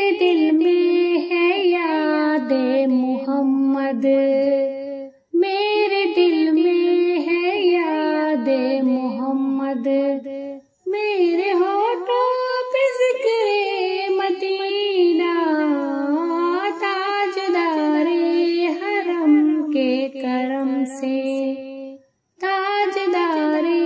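A female voice singing a naat without instruments, in long, sliding, ornamented phrases with short breaks between them.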